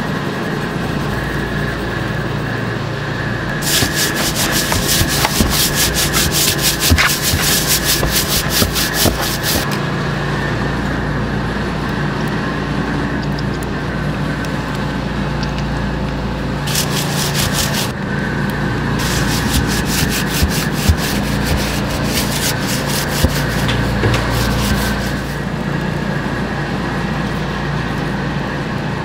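Coarse seasoning being dispensed onto raw beef ribs: two long stretches of rapid, gritty rasping of about six seconds each, with a short burst between them, over a steady background hum.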